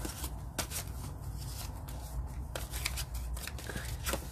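Paper rustling as paper money is handled and slipped into a paper envelope, with a few sharp crisp snaps of paper.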